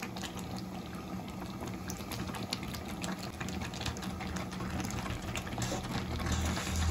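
Tomato gravy with meatballs bubbling in a kadhai on medium flame, with many small pops and a steady low hum underneath.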